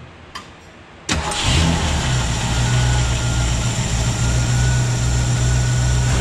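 A 1967 Ford Mustang's V8, fed by a freshly rebuilt Holley 2300 two-barrel carburetor, starts up about a second in. It catches almost at once and settles into a steady, evenly pulsing fast idle with the choke on.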